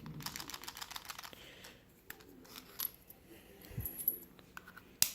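Small metal clicks and taps from a precision screwdriver being handled and turned: a quick run of clicks in the first second and a half, scattered ticks with a couple of brief high metallic pings, and one sharp click just before the end.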